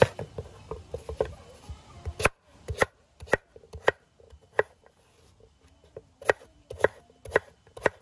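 Large knife chopping raw breadfruit into chunks on a wooden chopping board: quick light chops at first, then single sharp strokes about every half second, with a short pause near the middle.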